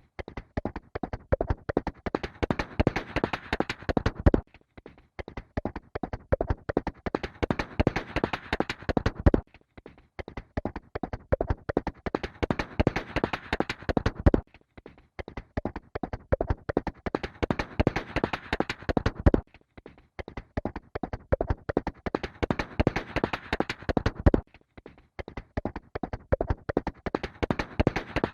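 A horse's hooves galloping: a quick, continuous run of hoofbeats that breaks off briefly about every five seconds, then starts again in the same pattern.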